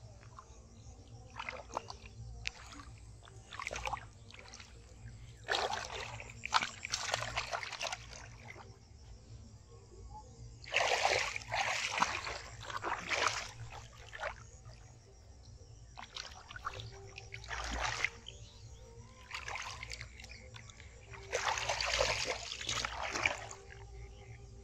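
Hands splashing and sloshing in shallow muddy paddy water while groping for fish. The splashing comes in repeated bursts of one to two seconds, with quieter gaps between them.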